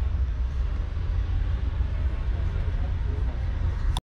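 Iveco S-Way's 11.1-litre six-cylinder diesel engine idling, a steady low rumble heard from inside the cab.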